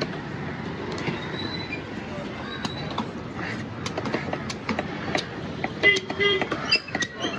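Knife chopping and cutting fish on a block: irregular sharp chops over a steady, noisy market background. A short pitched tone sounds about six seconds in.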